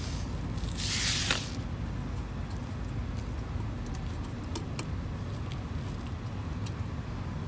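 Sand being worked into a planter: a short hiss of trickling sand about a second in, ending in a click, then a few faint light ticks. A steady low rumble runs underneath.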